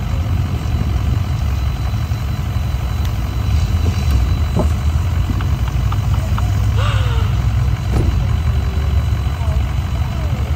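Mud truck's engine idling steadily with a deep, even rumble, and faint voices.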